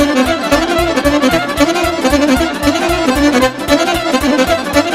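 Instrumental break of Romanian party folk music (muzică de petrecere): a fiddle plays a fast, repeating melody over a steady bass-and-drum beat.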